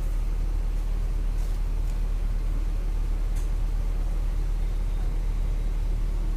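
Volksbus 17.230 EOD city bus heard from inside while running: a steady low engine drone with no change in pitch or level. There are two faint short ticks, about a second and a half in and again a couple of seconds later.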